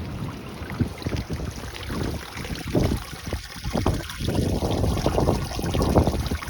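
Wind buffeting the microphone in irregular gusts, a low rumbling rush that swells and drops, louder in the second half.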